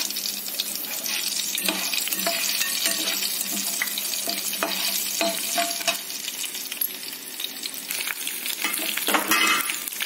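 Tempering for lemon rice: mustard seeds and green chillies sizzling and crackling in hot oil in a pan, stirred with a metal slotted spatula. About nine seconds in the sizzle grows louder as curry leaves and dried red chillies go into the oil.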